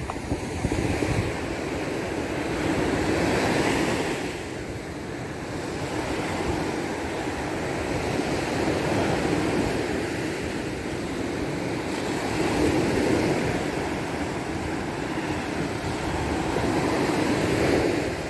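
Surf breaking on a beach, swelling and fading every few seconds, with wind rumbling on the microphone.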